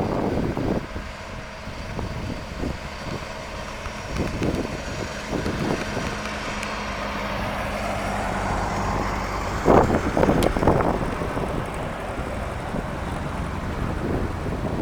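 Farm tractor engine running steadily as it goes by, growing louder toward the middle, with wind buffeting the microphone in loud gusts about ten seconds in.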